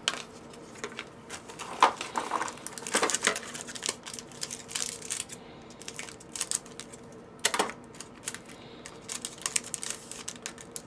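A foil hockey-card pack crinkling as it is handled and snipped open with scissors, then the cards are pulled out. Irregular sharp clicks and rustles throughout.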